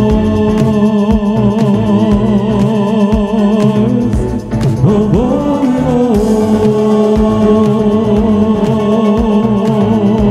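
A song with a sung vocal holding wavering notes over a steady beat, with a swooping slide in pitch about five seconds in.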